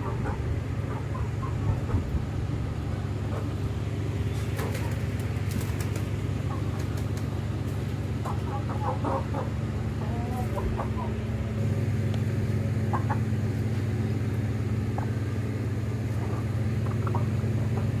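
Aseel chickens clucking softly now and then, short scattered calls, over a steady low hum.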